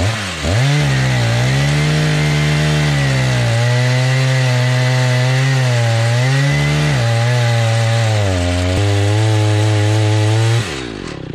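Two-stroke chainsaw engine running at high revs on an Alaskan chainsaw mill, cutting lengthwise through a log; its pitch sags and recovers as the chain loads up in the cut. About ten and a half seconds in, the throttle is let off and the revs drop.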